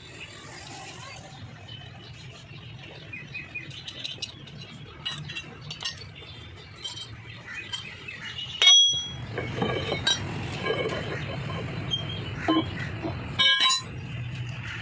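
Metal clinks and knocks of a socket wrench, bolts and hub cap as the hub cap is unbolted from a truck's wheel hub. A sharp, ringing metal clank comes about nine seconds in and a quick cluster of ringing clinks near the end, over a steady low hum.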